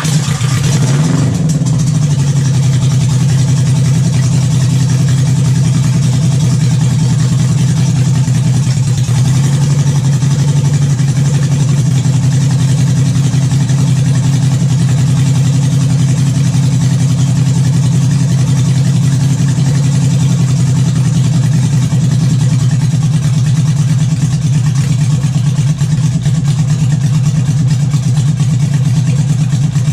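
1978 Honda Gold Wing's flat-four engine starting and then running steadily on its rebuilt carburetors. Its pitch wavers in the first second or two as it catches, then holds even.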